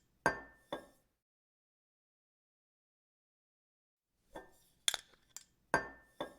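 Sharp clinks, each with a short ring. Two come close together about half a second in, then there is dead silence for about three seconds, then a quicker run of four or five clinks near the end.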